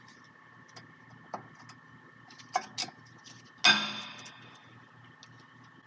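Metal clicking of new brake pads' steel backing plates against a rear caliper bracket and its clips as they are seated: a few light clicks, two sharper ones, then, just past halfway, a loud metallic clack that rings briefly.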